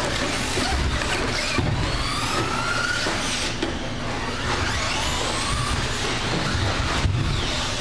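Electric motors of radio-controlled short-course racing trucks whining, rising and falling in pitch as they speed up and slow down, over tyre noise, with a couple of brief knocks.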